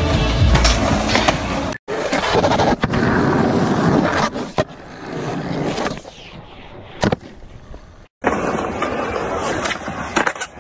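Skateboard wheels rolling on concrete, with sharp clacks of the board popping and landing, the loudest about seven seconds in. Music plays for the first two seconds, and the sound drops out briefly twice.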